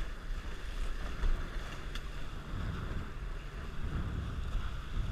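Wind buffeting the microphone and water rushing and splashing along the hulls of a Dart 18 catamaran sailing at speed: a low, uneven rumble under a steady hiss.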